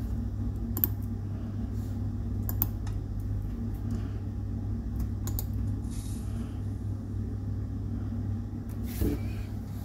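A few separate key presses on a Logitech keyboard, a second or more apart, each a sharp click, over a steady low hum.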